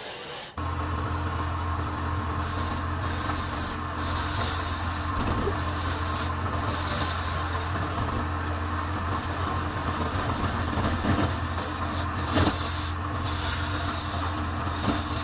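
Wood lathe motor running with a steady hum that comes in abruptly about half a second in, while a hand-held turning tool cuts the spinning wooden blank, with a scraping, rasping hiss of shavings coming off that swells and fades as the cut goes on. A few sharp clicks come near the end.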